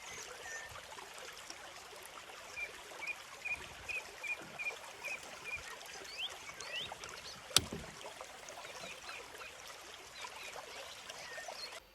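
Small stream babbling steadily, with a bird calling a run of about nine short, quick notes a few seconds in and a few rising chirps after it. A single sharp click about two-thirds of the way through is the loudest sound.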